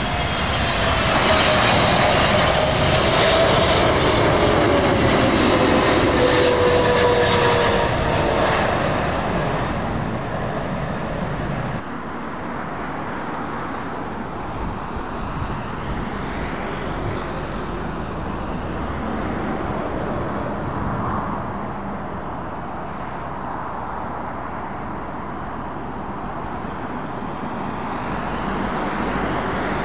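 Boeing 777-300ER's GE90 engines passing on final approach: loud jet noise with a whine that falls in pitch as the aircraft goes by, then fades. About twelve seconds in, it cuts to the quieter, steady jet noise of an approaching Airbus A380.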